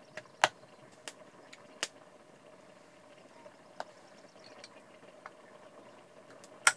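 A knife chopping on a wooden log used as a chopping block: a few sharp, irregularly spaced knocks. The loudest come about half a second in and near the end.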